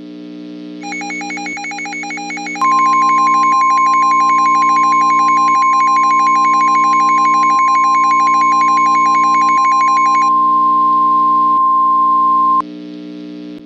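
Emergency alert tones: the single steady high tone of a NOAA Weather Radio 1050 Hz warning alarm starts about two and a half seconds in, sounds for ten seconds and cuts off suddenly, the signal ahead of a tornado warning broadcast. A rapid two-pitch beeping runs under it from the first second until about three seconds before the end, over a low synth drone.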